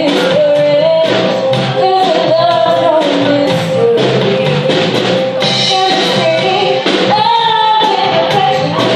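Live band playing with a female lead singer, electric guitars and a drum kit keeping a steady beat.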